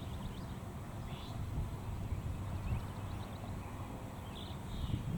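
Outdoor background between siren voice messages: a steady low rumble with a few faint, brief high chirps, about a second in and again near the end. The siren itself is silent.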